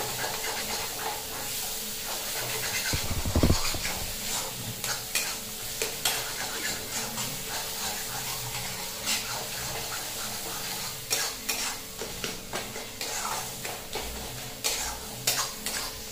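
A metal spatula stirring and scraping a sizzling spice paste in a stainless-steel kadai. Frequent clicks of the spatula against the pan sound over a steady frying hiss, with a low thump about three seconds in.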